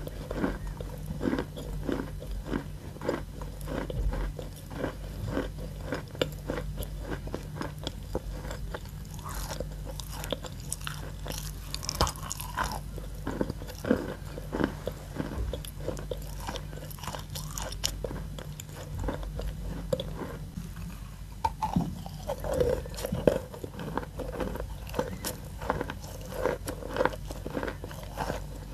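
Chalk being chewed close to the mouth: a continuous run of small dry crunches, several a second. Near the end she takes a fresh bite from a lump of white chalk.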